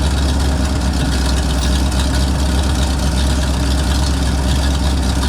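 1966 Chevrolet C60 grain truck engine idling steadily with its PTO engaged, driving the hydraulic hoist as the dump body rises.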